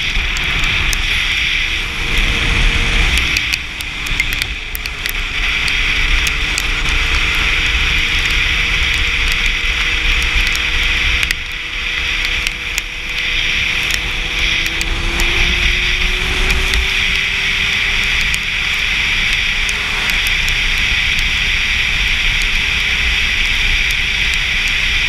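Sport motorcycle cruising on a wet road: a steady rush of wind and road hiss, with the engine note faint underneath and rising slightly in pitch about two-thirds of the way through. Scattered light crackles are mixed in.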